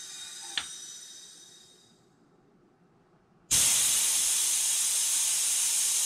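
Ayrtekk air-driven booster pump cycling while it boosts an air rifle's air tube to about 4,000 PSI. A hiss of compressed air fades away over about two seconds, with one small click. Then, after a short pause, a loud steady hiss of air starts and cuts off sharply about three seconds later.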